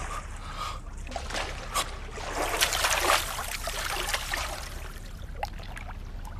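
Swimming-pool water splashing and lapping in irregular bursts, busiest around the middle.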